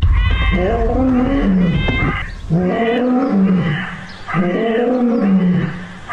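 A cat's high meow and a lion's lower growling calls, repeating in a loop. The pitch of each growl bends and falls, and each lasts about a second and a half, about three in all.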